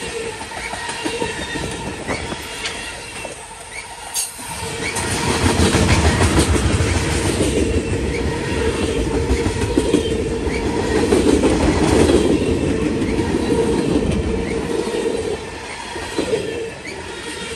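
Freight train cars rolling past close by: steel wheels clicking over rail joints under a steady rumble, with a steady squeal from the wheels. The sound swells louder twice, about a third and two thirds of the way through.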